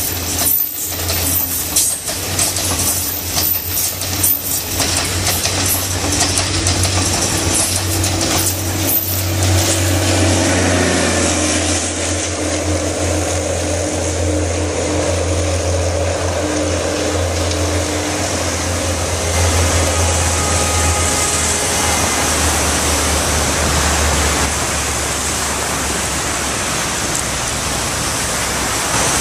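Diesel passenger train running past close by, its wheels clattering in quick clicks over the rail joints above a low engine hum for about the first ten seconds. Then a steadier rumble and rush of the train, with the low hum fading out a few seconds before the end.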